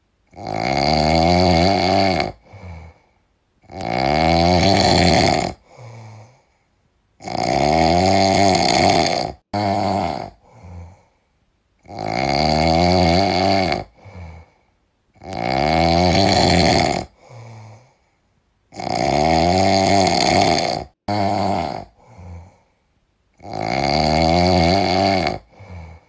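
Loud, rhythmic snoring. A long snore of about two seconds comes every three and a half to four seconds, and a short, softer breath follows each one.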